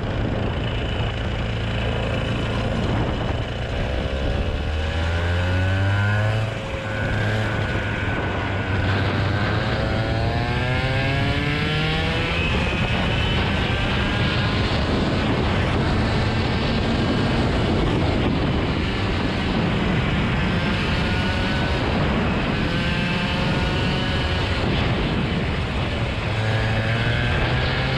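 A motor vehicle's engine running under way, its pitch rising, dropping back and rising again several times as it accelerates through the gears, over steady road and engine noise.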